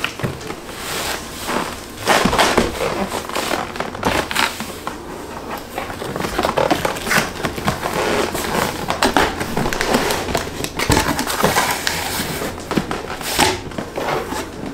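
Cardboard boxes being handled: irregular scraping and rustling of the cardboard with short knocks and thumps, as a boxed stand mixer is tipped and pulled out of its shipping carton and the carton flaps are opened.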